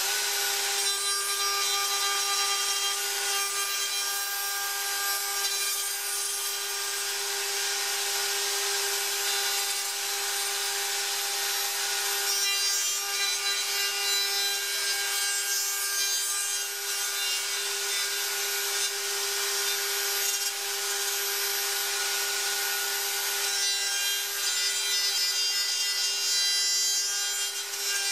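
Plunge router running at full speed with a steady high whine, its spinning bit cutting wood as it is guided through the slots of a dovetail template; the cutting noise shifts a little as the router moves from slot to slot.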